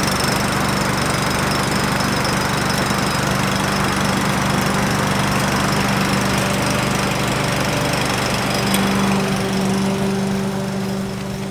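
Masport petrol push lawn mower engine running at a steady speed. It gets a little quieter near the end as the mower is pushed away across the grass.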